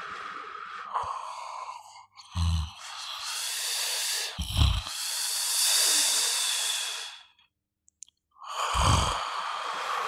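A person snoring: three short, low, rattling snores about two seconds apart at first, each running into a long breathy exhale. There is a pause of about a second with no breath before the last snore.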